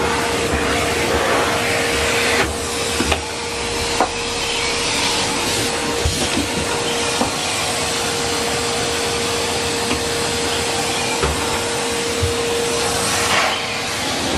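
Numatic Henry Pet canister vacuum cleaner running steadily, a constant motor whine over the rush of air, with a few light knocks scattered through.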